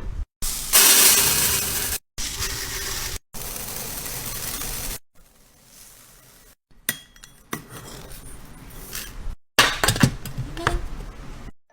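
Clinking and rustling of small items being handled and set into containers, in several short takes that cut off abruptly.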